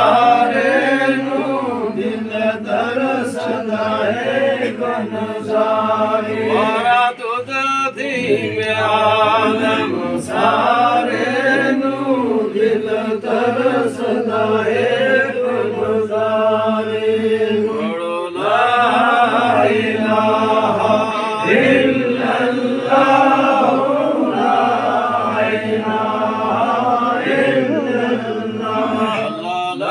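Men's voices chanting a Sufi devotional zikr together, a continuous melodic chant with no pauses.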